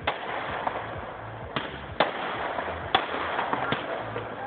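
Fireworks display with aerial shells bursting: about five sharp bangs at uneven intervals of roughly half a second to a second and a half, over a continuous crackle.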